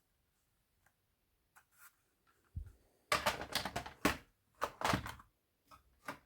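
Mechanical clicking and rattling of an airsoft replica gun being handled. A few light ticks come first, then a dull knock, then two dense runs of rapid clicks and rattles, and a few light ticks near the end.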